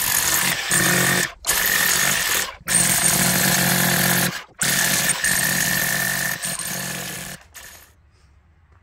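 Corded electric demolition hammer chiselling into concrete, running in bursts of one to two seconds broken by short pauses, and stopping about seven and a half seconds in.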